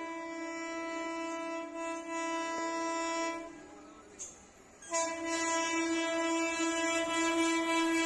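Horn of an Indian Railways WAP-4 electric locomotive sounded in two long steady blasts on a single pitch. The first breaks off about three and a half seconds in. The second, louder, starts about five seconds in and is still being held at the end as the locomotive draws near.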